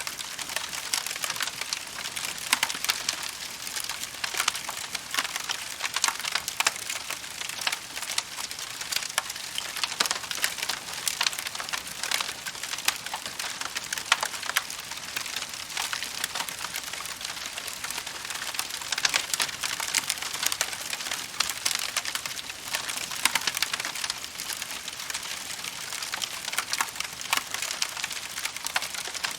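Wood fire crackling: a steady hiss with many sharp pops and snaps, dense and irregular throughout.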